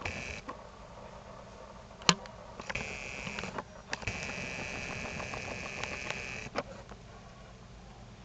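Camcorder zoom motor whirring in three runs that start and stop abruptly, the longest about two and a half seconds, with a single sharp click about two seconds in.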